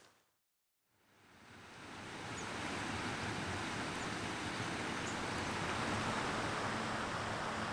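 A steady hiss of rain and running river water. It fades in over about two seconds after a brief silence near the start.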